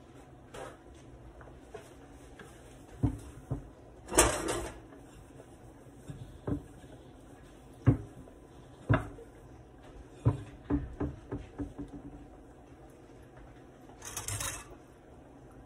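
A china plate being handled on a wooden cutting board and wiped with a paper towel: scattered knocks and clicks, with two short rustles, one about four seconds in and one near the end.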